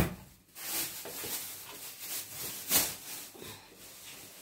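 Cooking oil being poured from a plastic bottle into a frying pan: a faint, even hiss, with a sharp click at the start and a sharper tick about three seconds in.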